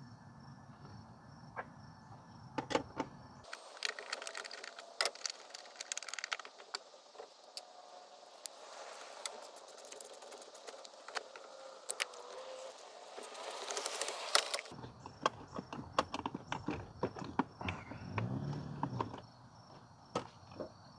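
Quiet, scattered clicks of a socket ratchet and small metal clinks and knocks as a car battery's hold-down bracket and terminal are undone and the battery is handled and lifted out.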